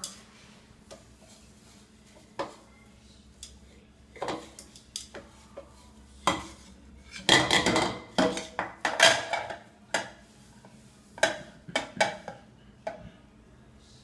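Dishes being washed by hand: a sponge scrubbing plates and bowls, with irregular clinks and scrapes of crockery against crockery and the sink, busiest and loudest about halfway through.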